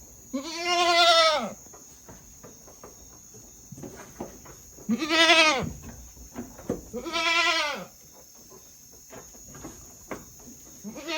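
Goat bleating: three wavering bleats of about a second each, rising then falling in pitch, with a fourth beginning at the very end.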